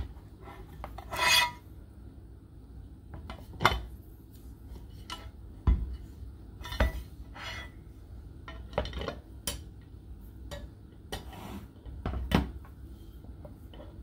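Steel rod and metal base plate of a Lowery floor stand knocking and scraping against each other as the rod is twisted in the plate and the pieces are handled. There are irregular metallic clinks and rubbing, with a few sharper knocks.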